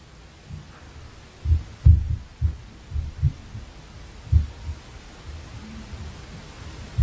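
Interfloor impact noise from the apartment upstairs: dull, low thuds through the ceiling, like heavy footsteps, coming at irregular intervals over a steady low hum. The loudest thuds come about 2 seconds in and again a little past the middle.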